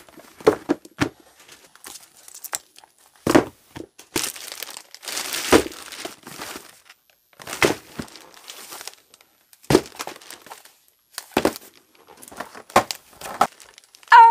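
Cardboard boxes and plastic-wrapped packaging being handled: a string of knocks and thumps with bursts of crinkling and rustling. A short vocal exclamation comes right at the end.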